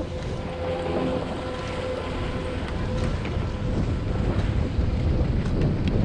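Wind rumbling on the microphone, a steady low noise, with a faint hum that fades out a little over halfway through.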